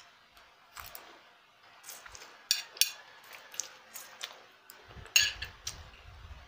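Close-miked eating of fried instant noodles: noodles slurped up into the mouth and chewed, with a run of sharp, wet mouth clicks and smacks, the loudest about two and a half seconds in and again about five seconds in.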